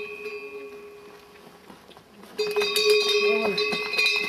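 A yak's bell ringing out and fading, then jangled hard again a little past halfway, its clapper rattling as the yak bucks and pulls.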